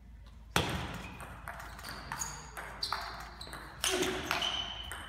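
Table tennis rally: the celluloid ball clicks sharply off the rackets and the table, with a brief high ping on each hit, roughly every half second. The first hit, about half a second in, is the loudest.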